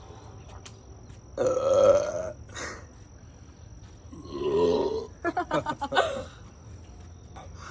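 Long, loud burps from gulping carbonated Sprite: the loudest about a second and a half in, another around four seconds in, then a quick run of short sounds.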